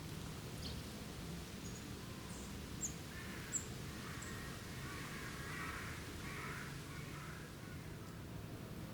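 Wild birds calling: a few short, high chirps in the first half, two of them sharp and loud, then a harsh, raspy, crow-like call lasting several seconds, over a steady low outdoor rumble.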